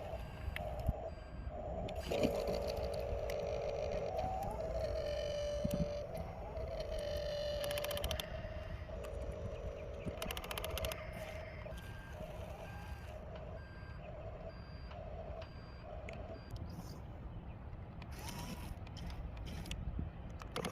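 Excavator running with a low engine rumble. A steady whining tone bends in pitch, then turns into a warning alarm beeping about once a second for several seconds.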